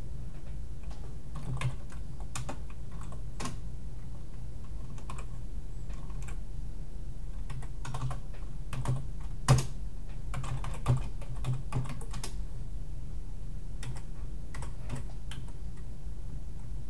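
Computer keyboard being typed on in irregular runs of key clicks, with one louder keystroke about halfway through, over a steady low hum.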